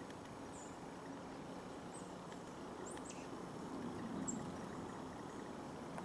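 Short, high-pitched chip calls of small songbirds, about half a dozen scattered through, over a faint steady low hum.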